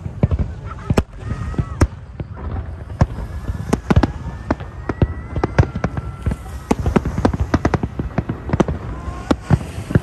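Aerial fireworks display: shells bursting in a dense, continuous barrage of bangs, several a second.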